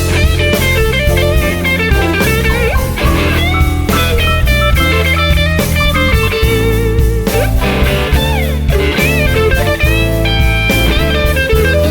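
Blues-rock band playing an instrumental passage: an electric guitar lead with string bends and vibrato over bass guitar and drum kit.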